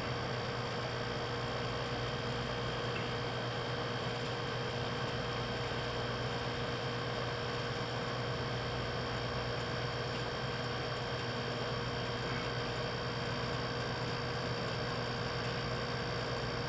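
A steady, unchanging hum and hiss, with no distinct events.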